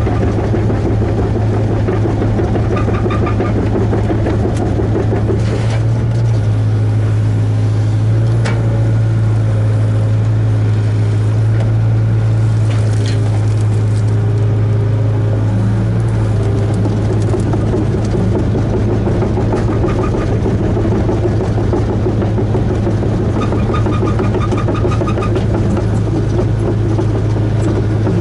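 Hitachi ZAXIS 75UR compact excavator's diesel engine running steadily under load, heard from inside the cab while the hydraulics work the boom and bucket. A couple of sharp clicks about 8 and 13 seconds in.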